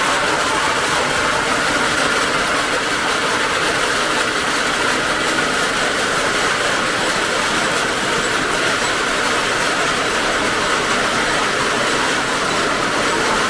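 A heavy machine running steadily: a continuous, even mechanical noise that does not change or pause.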